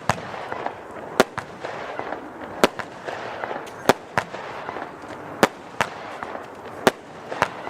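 Röder 'Bling Bling' F2 consumer firework battery firing: a sharp bang every second or so, sometimes two close together, with continuous crackling in between.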